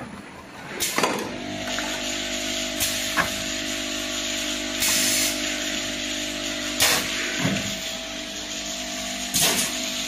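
Automatic servo piston filling and capping line running: a steady machine hum, broken about every two seconds by a short, sharp hiss of compressed air as the line's pneumatic cylinders cycle the bottles through the filling nozzles.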